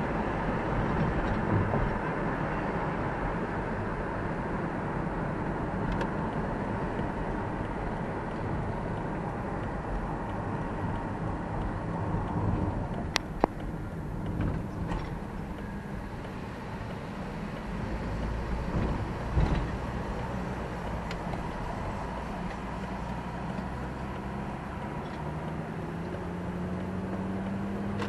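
Steady engine and tyre noise inside a moving car's cabin. There is a sharp click about thirteen seconds in and a couple of short thumps around nineteen seconds. Near the end the engine note rises steadily as the car speeds up.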